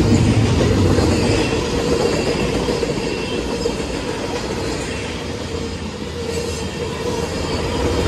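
Norfolk Southern freight cars rolling steadily past on steel wheels, a continuous loud rumble with a faint high wheel squeal over it.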